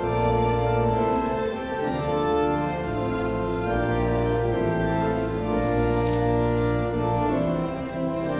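Organ playing a hymn: full sustained chords that change every second or so over a deep held bass note.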